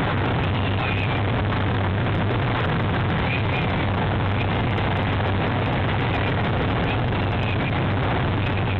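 Steady rushing background noise with a low hum, over which young peregrine falcon chicks give a few faint, high begging cheeps while being fed.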